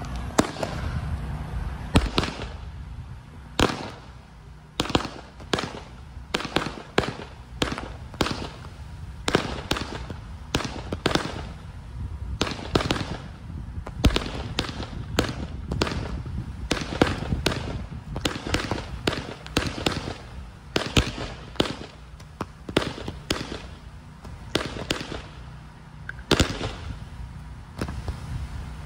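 Phantom Scatter Bugs low-noise 200-gram firework cakes firing: a long, irregular run of sharp pops, about two a second, as the shots launch and burst.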